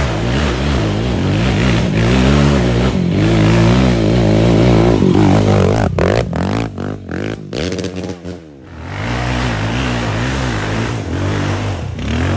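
Sport quad (ATV) engines revving as they climb a hill, pitch rising and falling with the throttle. One quad passes close by about halfway through, its pitch falling as it goes past; the sound dips briefly, then another quad's engine builds near the end.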